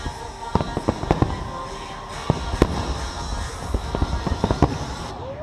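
Aerial fireworks bursting: an irregular run of sharp bangs, several a second, with music playing underneath.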